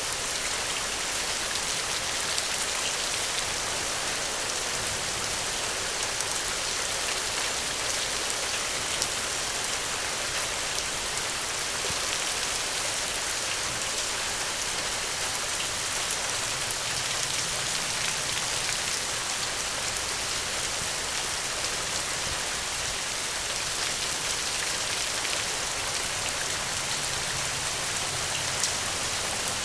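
Steady gentle rain falling, an even hiss with scattered drops ticking.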